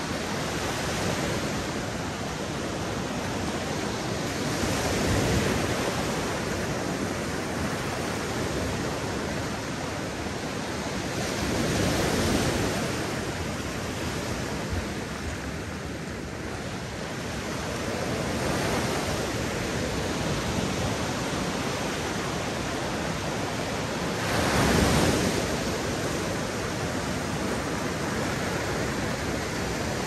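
Sea waves breaking on a beach: a steady wash of surf that swells with each incoming wave about every six or seven seconds, the largest break coming near the end.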